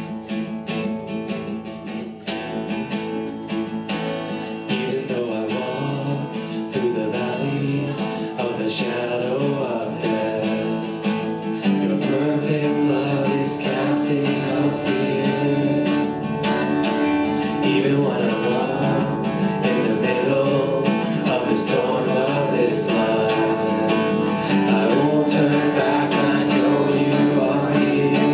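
Live worship music: strummed acoustic guitar and keyboards, with a man singing the melody from about five seconds in. The band grows fuller and louder about twelve seconds in.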